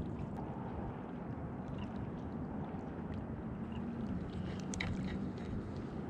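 Steady low outdoor rumble of wind and distant traffic. A faint engine hum drops slightly in pitch about four seconds in, and a few light clicks come near the five-second mark.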